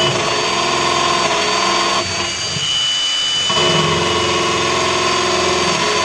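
Cordless drill with a 90-degree right-angle attachment running under load, drilling through aluminum bracket and sheet with a steady whine. The tone shifts between about two and three and a half seconds in. The replacement bit is cutting well, after a dull bit that would not cut.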